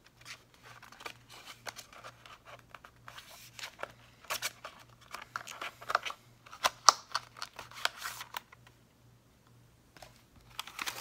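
Clear plastic bag crinkling and rustling as hands pull a small paper box out of it, a run of irregular crackles that is busiest in the middle and goes quiet for a moment near the end.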